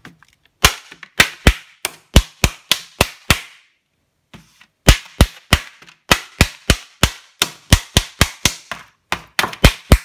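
Kitchen knife tip stabbing holes in the plastic film lid of a microwave ready-meal tray: a run of sharp taps, about three a second, a pause a few seconds in, then a second, longer run.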